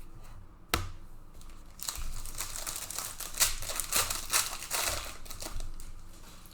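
Plastic wrapping of trading-card packs being torn open and crinkled, with a sharp snap about a second in and a run of dense crackling through the middle.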